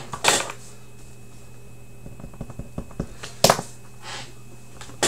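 Steady low hum of a small room, broken by two short noisy bursts, about a third of a second in and again about three and a half seconds in, with a few soft clicks between them.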